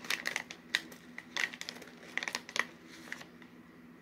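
Clear plastic popcorn bag crinkling in a run of sharp crackles as fingers rummage inside it and pull out a piece of popcorn; the crinkling stops a little after three seconds in.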